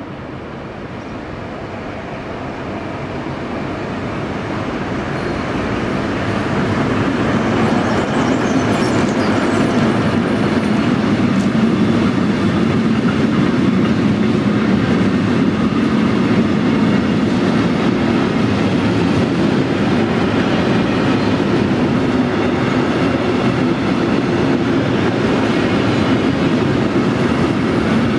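Freight train hauled by a Deutsche Reichsbahn class 118 diesel-hydraulic locomotive approaching and passing close by. The sound builds over the first six or seven seconds as the train arrives, then holds as a steady rumble and clickety-clack of hopper wagons rolling past.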